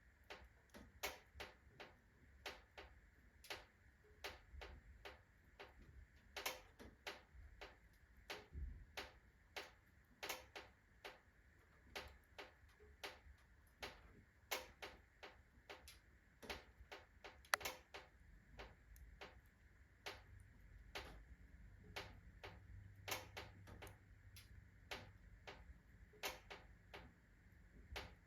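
Iron fireplace stove ticking and clicking irregularly, about one to two sharp ticks a second with now and then a louder one, as its metal expands under fast heating from freshly lit kindling.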